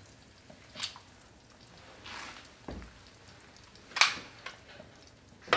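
Instant Pot's stainless lid being lifted off and set down: a light click about a second in, a soft low thump midway, and a sharp clack about four seconds in.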